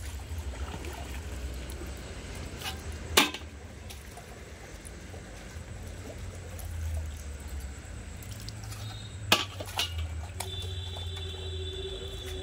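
Bell-metal (kansa) plates and bowls clinking as they are handled and stacked: one sharp clink about three seconds in, a few more around nine to ten seconds, the last leaving a ringing tone for about two seconds. A low rumble runs underneath.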